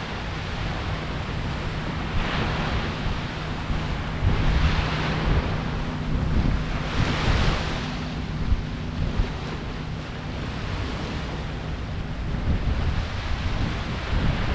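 Small ocean waves breaking and washing up the beach, swelling in a hiss every few seconds, with wind rumbling on the microphone.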